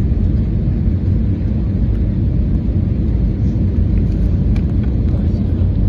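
Steady low rumble inside the cabin of an Airbus A321neo descending on approach: the drone of its Pratt & Whitney PW1100G geared turbofans and the airflow past the fuselage.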